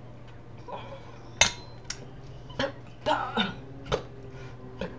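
A woman speaking in short, broken phrases, with one sharp click about one and a half seconds in.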